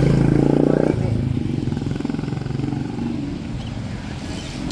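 A motor vehicle's engine running, with a loud steady drone for about the first second, then dropping to a lower rumble that slowly fades.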